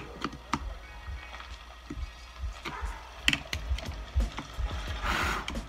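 Scattered small clicks and knocks of a screwdriver and plastic and metal parts being handled on a chainsaw during reassembly, with a short hiss about five seconds in.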